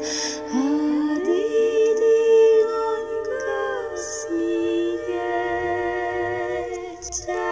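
Wordless singing: a voice humming slow, long-held notes that glide from one pitch to the next, with audible breaths between phrases.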